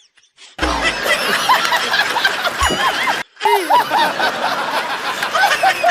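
Laughter: several voices chuckling and snickering in quick repeated bursts, in two stretches with a brief break near the middle, starting and stopping abruptly.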